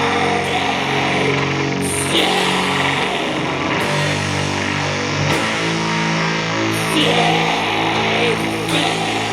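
A doom metal band playing live, loud and slow: distorted guitars and bass hold long chords that change only every second or two, with a cymbal crash about every one and a half seconds.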